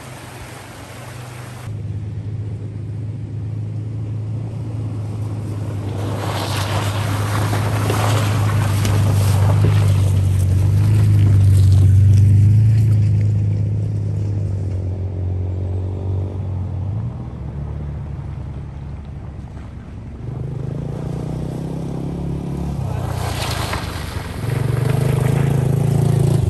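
ATV (quad) engines droning as they ride across the gravel bar. One engine swells to a peak about halfway through and fades away. Another comes in louder near the end.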